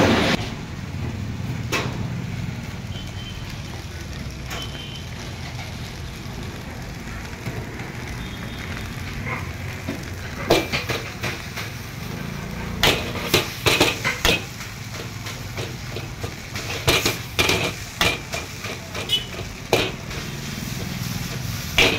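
Long steel ladle clanking and scraping against an iron wok as veg noodles are stir-fried, the strikes coming in quick clusters from about halfway through, over a steady low rumble.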